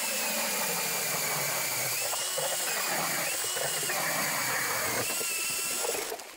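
Cordless drill spinning an ice auger through river ice, boring a fishing hole. The motor whine dips and rises in pitch as the load changes, and stops about six seconds in.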